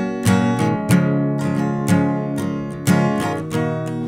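Background music: a strummed acoustic guitar playing chords in a steady rhythm.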